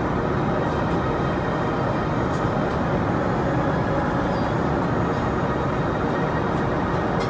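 Steady in-flight cabin noise of a Boeing 787-8 airliner: airflow and engine noise heard from a passenger seat, constant in level throughout.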